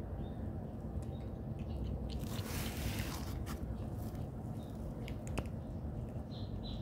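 Cats chewing and crunching dry kibble, with scattered sharp crunches and a denser patch of crunching about two to three seconds in, over steady low background noise.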